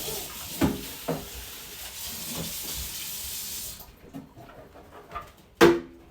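Water running from a tap into a sink, shut off a little under four seconds in. A few knocks, the loudest a sharp clunk near the end.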